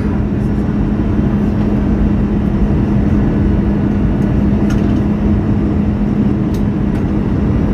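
Airbus A320 cabin noise on landing approach: the steady rush of the jet engines and airflow, with a steady low hum under it and a few faint ticks.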